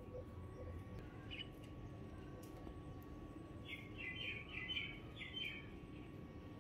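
A small bird chirping: one brief chirp, then a quick run of several chirps about four seconds in, over low background noise.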